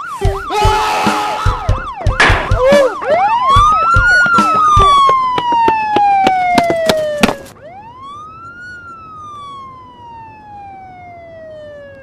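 Police siren: a quick up-and-down yelp at first, then a slow wail that rises and falls in one long sweep, cuts off abruptly about seven seconds in, and sweeps up and down once more. A string of sharp bangs sounds over it in the first few seconds.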